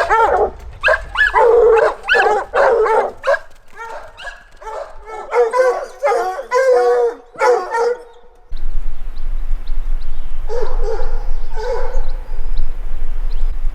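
Bear-hunting hounds baying over and over in long, drawn-out calls. About two-thirds of the way through, the sound cuts to a steady rushing noise, and two more bays follow.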